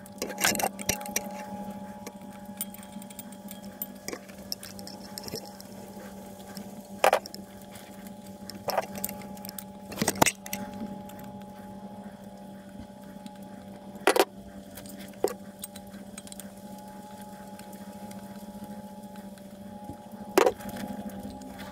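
Tools knocking and clinking against the bolts and flywheel of a Bukh DV10 marine diesel as the flywheel bolts are worked loose, about seven short sharp knocks at irregular intervals over a steady low hum.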